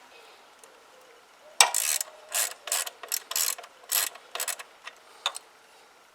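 Ratchet wrench with a 10 mm socket loosening a small bolt on a motorcycle's headlight clamp. A sharp click about a second and a half in, then a run of short ratcheting strokes over about three seconds, and one last click near the end.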